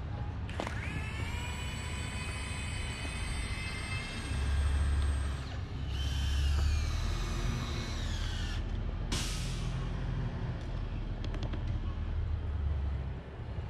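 Truck-mounted crane at work. Its engine runs with a high hydraulic whine that rises about half a second in and slides down near the end of the lift, and a short hiss comes just after.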